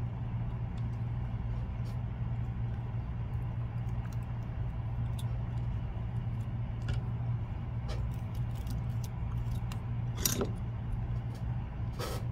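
Small scattered clicks and taps from fly-tying tools and thread being handled at a vise, with a sharper click about ten seconds in and another near the end, over a steady low hum.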